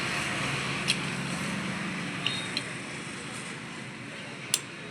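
A few short, sharp clicks or taps, four in all, over a steady background hiss. A low hum under the hiss fades out after about two and a half seconds.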